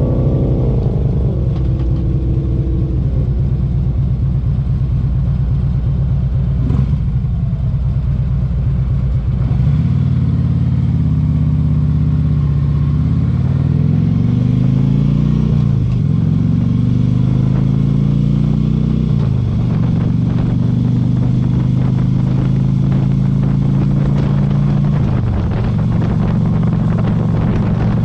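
Harley-Davidson Tri Glide trike's air-cooled V-twin engine running under way. After about ten seconds it pulls hard, its pitch climbing and then dropping back sharply three times as it shifts up through the gears.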